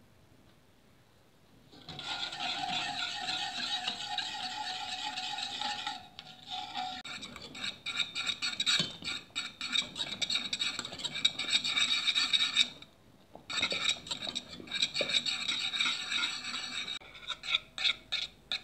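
Wire whisk scraping and clinking against the bottom and sides of a stainless steel saucepan as a chocolate milk and cornstarch mixture is whisked in fast strokes. It starts about two seconds in and stops briefly about two-thirds of the way through.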